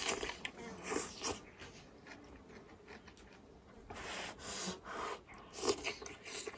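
A person eating hot pot from a bowl, close to the microphone: slurping noodles and food off chopsticks and chewing, in a string of short slurps with pauses between them.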